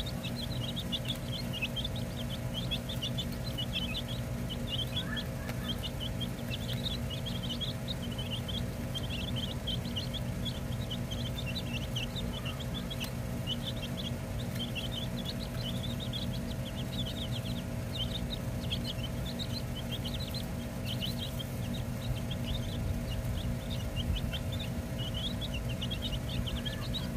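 A flock of baby chicks peeping continuously, many short high cheeps overlapping without a break, over a steady low hum.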